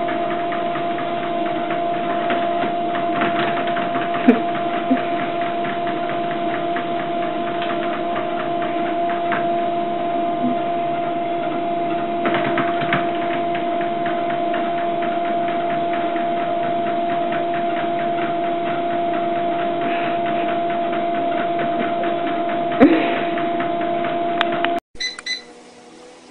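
Treadmill running: a steady motor whine on two pitches over the rumble of the moving belt, with a few knocks, the loudest about 23 seconds in. Near the end the sound cuts off suddenly to a much quieter treadmill.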